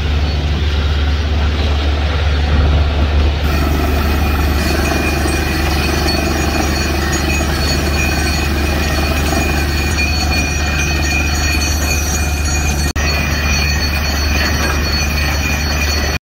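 Truck-mounted DTH borewell drilling rig and its air compressor running steadily: a loud low drone with a steady high-pitched whine over it. The sound cuts out for an instant about thirteen seconds in.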